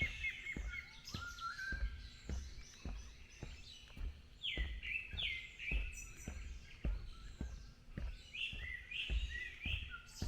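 Several wild birds singing and calling at once in woodland, with many quick down-slurred whistled notes overlapping. Underneath, footsteps on a forest path make short, regular thuds a few times a second.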